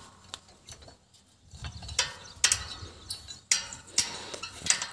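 Irregular sharp metallic clicks and clinks of a wrench working the nut and bolt of a cultivator tine. The clinks start about a second and a half in and come every half second or so.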